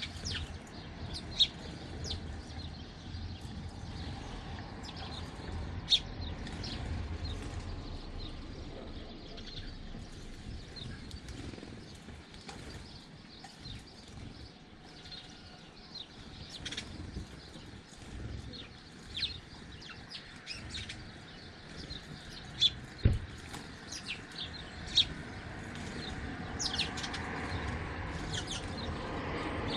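Small garden birds chirping at a feeder, with short high calls scattered throughout. A few sharp clicks or knocks stand out over the calls, one early, another about six seconds in, and three close together later on.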